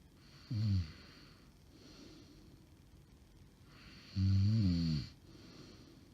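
A woman snoring heavily in her sleep, the snoring the uploader takes for sleep apnea. About half a second in comes a short snore that falls in pitch, and about four seconds in a longer, louder snore, with breathy, rasping breaths in between.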